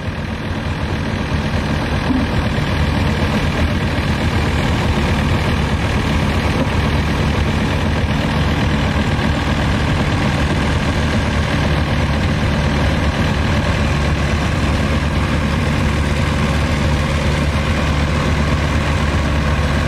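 Nuffield 4/65 tractor's four-cylinder diesel engine working under load as it pulls the sled. It grows louder over the first couple of seconds, then runs at an even, low, steady note.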